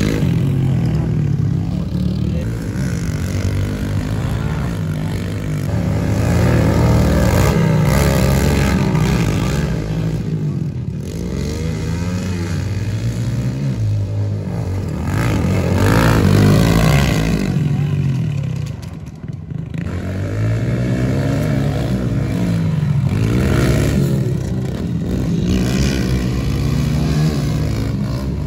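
Small 110cc pit bike engines revving up and down as the bikes ride the dirt track, the pitch rising and falling again and again as riders accelerate and back off, with a short lull about two-thirds of the way through.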